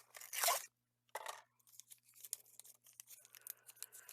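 Glue dots being pulled from their roll and handled with paper card pieces: two short rasping tears, the first about half a second in and the second just after a second in, then light clicks and rustling.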